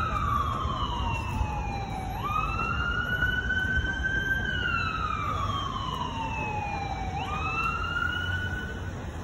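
Ambulance siren wailing, its pitch sliding slowly down and then sweeping quickly back up about every five seconds, and stopping shortly before the end. A low rumble of background noise runs underneath.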